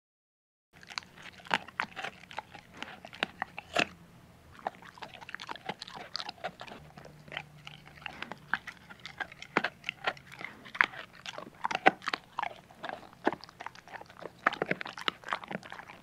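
A dog eating, chewing and crunching its food: many quick, irregular crunches and bites that start about a second in.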